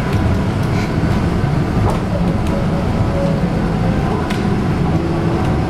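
Steady low rumble of a city bus driving, its engine and road noise heard from inside the passenger cabin.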